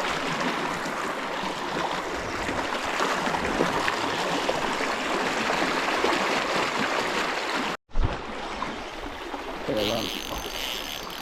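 Water rushing steadily over a small waterfall and down a swollen stream. The sound cuts out completely for a moment just under eight seconds in, then comes back a little quieter.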